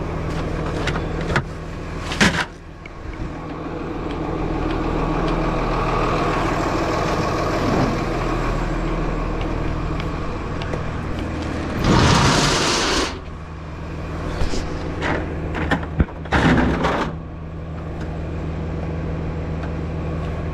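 Delivery truck's engine idling with a steady low hum. A few sharp knocks and clatter come around two seconds in and again near the end, and a loud hiss lasts about a second roughly twelve seconds in.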